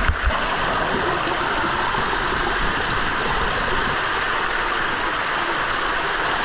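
Small waterfall pouring down the rock into a canyon pool: a steady, even rush of falling water. A couple of low knocks sound right at the start.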